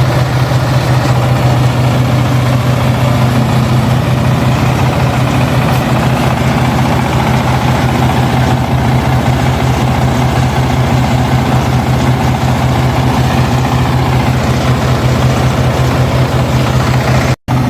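Combine harvester engine running steadily at an even pitch, with a momentary break near the end.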